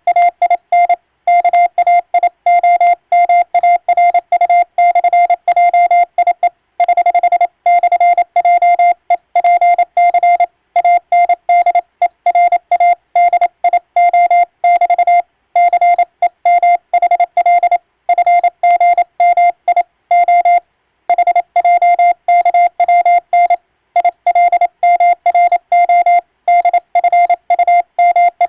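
Morse code sent on an electronic keyer: a single steady beep keyed rapidly on and off in short and long elements (dots and dashes) at an even, fast pace, with short pauses between words.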